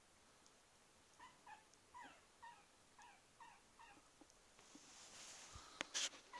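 Pomeranian puppy whimpering: a faint run of about eight short, high whines, each falling in pitch, over about three seconds. Near the end come a rustle and a couple of sharp clicks, the loudest sounds.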